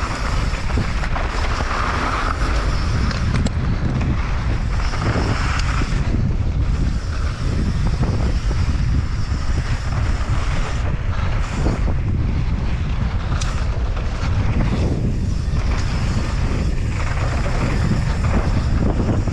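Wind rushing over the microphone of a mountain biker's action camera, with tyres rolling over loose dirt, as the bike descends a downhill trail at speed.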